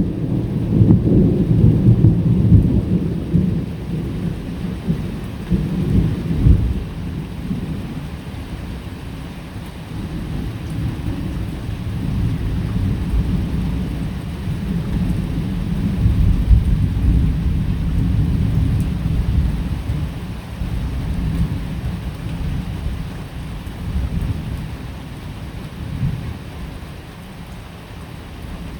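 Thunder rumbling long and low over steady rain. The rumble is heaviest in the first few seconds, swells again about halfway through, and thins toward the end, while the rain's hiss holds steady.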